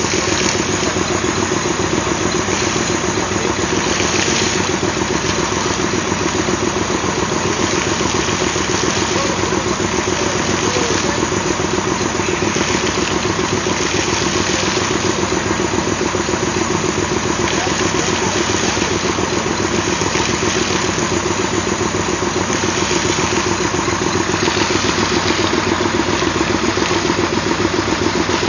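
Old Westinghouse train air-brake compressor running steadily, with a rapid, even pulsing beat and a hiss that swells and fades every second or two.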